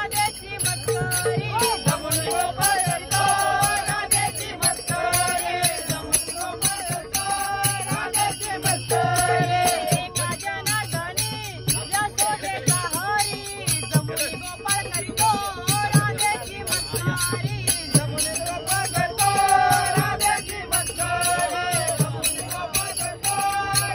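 Men singing a Marathi gavlan bhajan, one voice leading, over a fast metallic jingling beat and hand-clapping.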